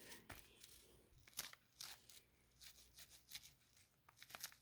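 Faint, irregular scratching and tapping of writing on paper, with a few sharper clicks.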